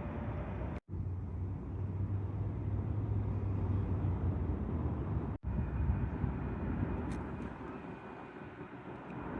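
Steady low rumble of distant motor traffic, broken by two momentary dropouts about a second in and about five seconds in, and fading slightly near the end.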